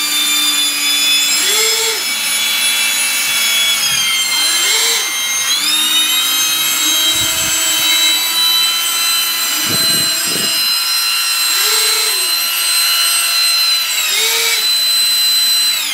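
Electric ducted fans of a turbine-drone airframe, yaw-thruster fans included, running at throttle with a steady high, many-toned whine. The pitch dips and climbs back about four to five seconds in, a few short lower swells come and go, and the whine starts to wind down at the very end.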